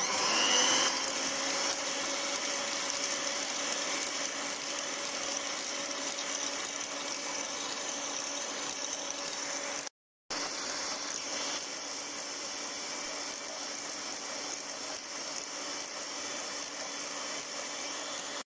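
Electric hand mixer running steadily on medium speed, its twin beaters whipping instant coffee, sugar and hot water in a glass bowl. The pitch settles in the first second as it comes up to speed, and the sound breaks off briefly about ten seconds in.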